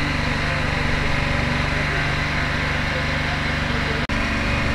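A small engine running steadily, with people's voices faintly under it. About four seconds in the sound cuts out for an instant and resumes with a slightly different hum.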